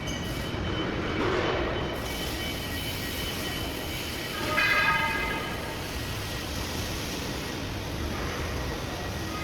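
Steady machinery noise on a factory floor, with a brief high-pitched, horn-like tone about four and a half seconds in.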